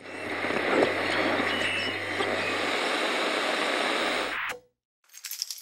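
Steady rush of street traffic noise with a low hum under it, fading in at the start and cutting off suddenly about four and a half seconds in.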